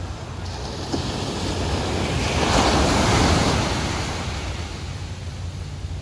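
Small waves breaking and washing up on a sandy beach: a hiss of surf that swells to a peak about halfway through and then fades as the water draws back, over a steady low rumble of wind on the microphone.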